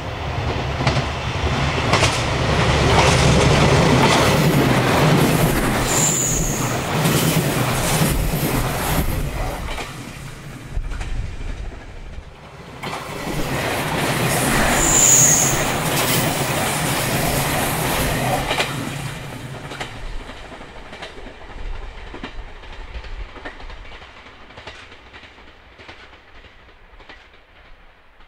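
JR Shikoku 2000-series tilting diesel express train passing at high speed: diesel engines running under power, wheels clicking over rail joints, and a brief high wheel squeal. After a sudden break about twelve seconds in, a second pass rises to a peak and then fades away into the distance.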